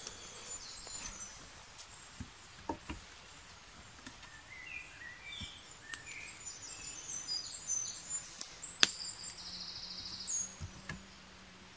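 Small songbirds singing in woodland: short chirps and a quick trill. Scattered clicks and knocks come from handling sticks and cord during pole lashing, with one sharp knock about nine seconds in as the loudest sound.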